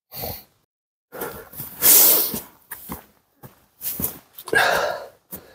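Footsteps crunching in snow on a forest trail: a hiker walking with a heavy pack, in irregular steps with short gaps between them.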